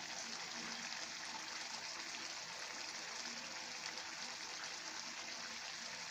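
Laing of taro leaves and dried fish bubbling at a steady boil in coconut milk in a pan, a continuous fine bubbling.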